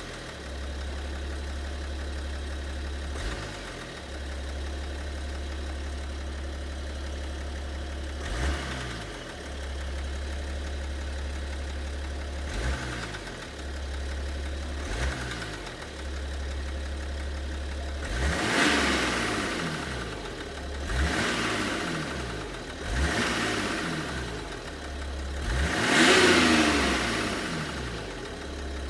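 BMW 730d's M57 three-litre straight-six diesel idling and blipped repeatedly: a few short, small rev blips, then four bigger ones in the second half, the last the loudest, each dropping straight back to idle. The owner is trying to trace a knock in this engine that he cannot identify.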